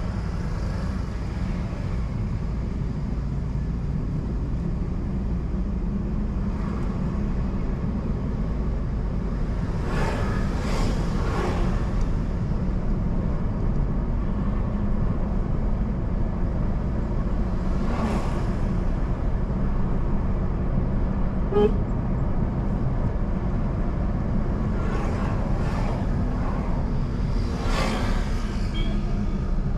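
Steady low rumble of a car driving on a road. Other vehicles pass with a swelling whoosh several times, and there is one brief horn toot about two-thirds of the way in.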